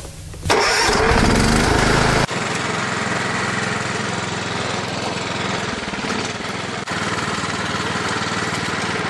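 Riding lawn mower engine running, cut together from separate clips. Over the first couple of seconds it is louder and its pitch rises; it then runs steadily, with abrupt changes about two seconds in and again near seven seconds.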